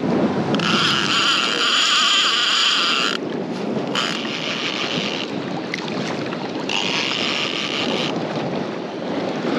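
Outboard motor of a panga running under way, with wind buffeting the microphone. A high, steady whine cuts in and out three times.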